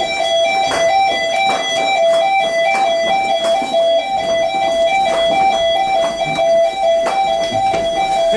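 Building fire alarm sounding loudly: a two-tone warble that switches between two pitches several times a second, the kind of sound British level crossings make.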